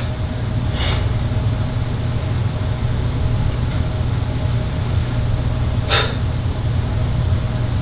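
A steady low rumble runs throughout. Two short, sharp breaths cut through it, about a second in and again about six seconds in, as a bodybuilder exhales between poses.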